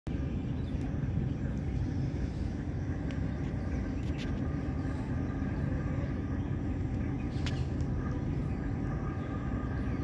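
Steady low outdoor rumble, with two brief faint ticks about four and seven and a half seconds in.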